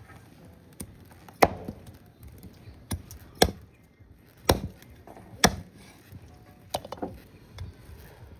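Chopping with a heavy blade on a block: about eight sharp, unevenly spaced strokes, roughly one a second, some harder than others.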